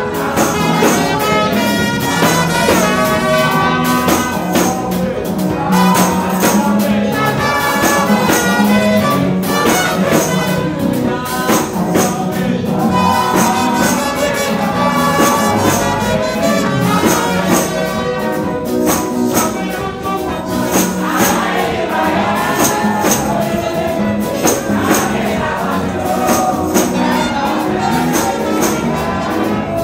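Lively gospel praise music with a tambourine jingling on a steady beat and voices singing over it.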